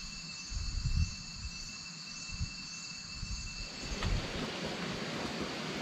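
Insect chorus with steady high-pitched trilling, with a few low thumps and rumbles on the microphone. About four seconds in the insect sound cuts off and a steady even hiss takes over.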